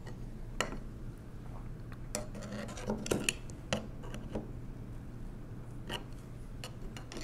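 Irregular small metal clicks and taps of a screwdriver prying at the steel parts of a 1920s Monroe mechanical calculator's mechanism, about ten in all, spaced unevenly.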